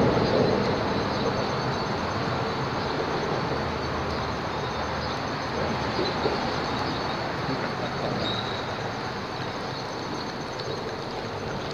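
Steady rumble of highway traffic crossing the concrete bridge overhead, heard from underneath, swelling a little at the start and easing off.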